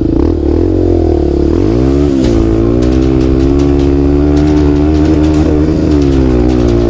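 Single-cylinder four-stroke trail bike engine under way, its pitch climbing about two seconds in as the throttle opens, then holding steady at speed, with scattered ticks over it.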